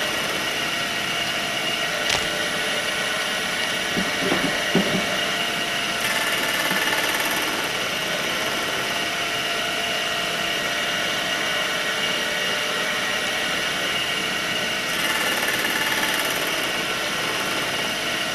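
Horizontal milling machine running steadily, its arbor-mounted cutter spinning while cutting V-shaped teeth in a brass carriage-clock contrate wheel. A sharp click about two seconds in and a few brief knocks around four to five seconds.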